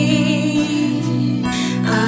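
A woman singing a slow gospel worship song with vibrato over steady sustained instrumental accompaniment; her line breaks for a breath about one and a half seconds in and a new note begins.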